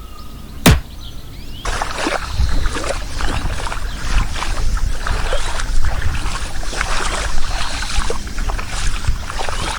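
Water splashing and trickling with many small clicks and knocks, starting about two seconds in and running on, after a single sharp click.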